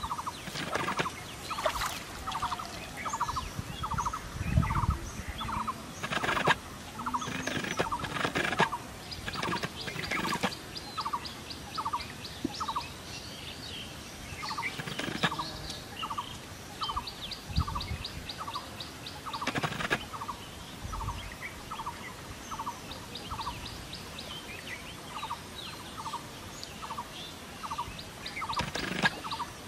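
Animal calls: a short pulsed note repeated steadily about twice a second, joined now and then by a faster, high-pitched trill of rapid ticks. Scattered light knocks and rustles come in between.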